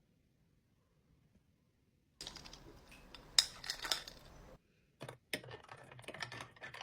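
Small hard objects clicking and clinking over a light hiss, like kitchenware being handled for a drink. It starts about two seconds in with one sharp click as the loudest moment, pauses briefly, then another run of clicks follows near the end.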